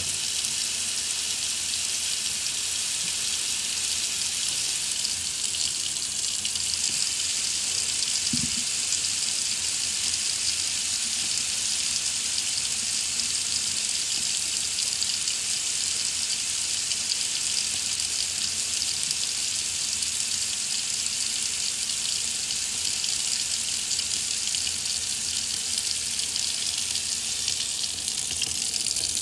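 Water faucet running steadily: an even, unbroken hiss of the water stream.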